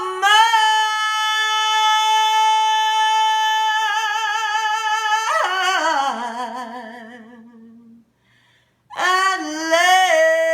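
A woman singing unaccompanied: one long high note held for about five seconds, then sliding down with a wide vibrato and fading away. After a pause of about a second she begins the next phrase, bending into another long held note.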